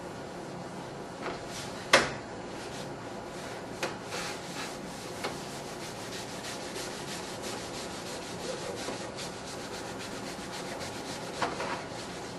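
Mesh scouring pad scrubbing wet car window glass in repeated rubbing strokes, with a sharp knock about two seconds in. No grit or dirt is heard catching under the pad: the glass is coming clean.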